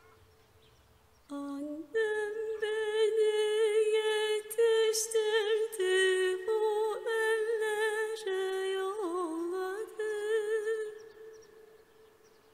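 A solo voice humming a slow melody without words. It holds long notes with wavering, ornamented turns, starts about a second in and fades out near the end.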